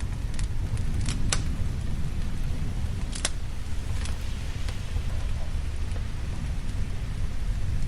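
Rain with a steady low rumble of thunder, and a fireplace fire giving about seven sharp crackles and pops during the first five seconds.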